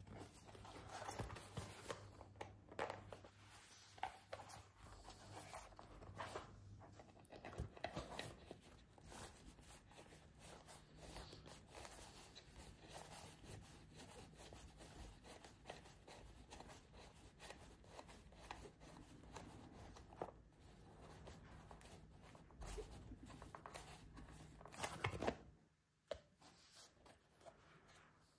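Faint rustling, crinkling and small clicks of packaging being handled and pulled away from a new bicycle, with a louder rustle near the end.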